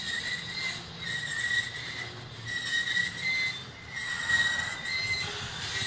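Double-stack intermodal well cars rolling past with their steel wheels squealing on the rails. A high, wavering squeal comes and goes several times over a low rumble.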